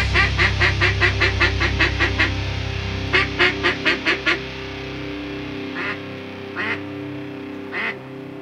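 Ducks quacking in fast runs of short calls, about eight a second, then a few single quacks, over background music with held notes.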